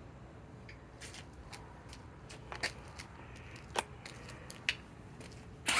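Tools being handled: scattered sharp clicks and knocks. A power tool starts up with a loud whine right at the end.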